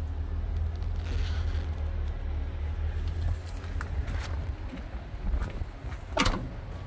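Low steady rumble with scattered clicks and knocks as someone climbs down from a truck cab onto its metal step. The loudest is one short, sharp clatter about six seconds in.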